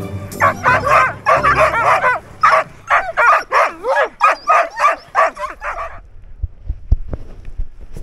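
A pack of Greenland sled dogs barking, yipping and whining all at once in an excited chorus, typical of sled dogs worked up at feeding time. The noise cuts off abruptly about six seconds in, followed by a few low thumps.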